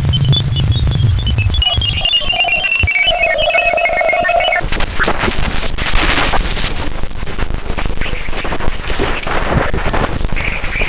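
Sonified radio-wave recording of Jupiter's moon Ganymede, from the Juno spacecraft's flyby, played in reverse. Stepped whistling tones fall in pitch over a steady mid-pitched tone, then about halfway through a loud crackling static hiss with surges takes over.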